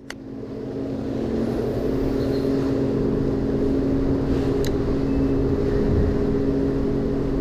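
An engine droning steadily, with a constant pitch, growing louder over the first couple of seconds and then holding.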